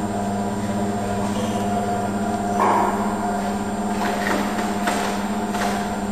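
Electric motor of a Milford 410 impact riveting machine running, spinning its belt-driven flywheel with a steady hum. A few knocks sound over it, the loudest about two and a half seconds in.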